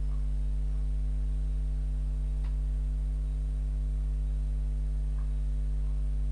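Steady mains hum: a deep electrical drone with a ladder of higher tones above it, unchanging in level and pitch.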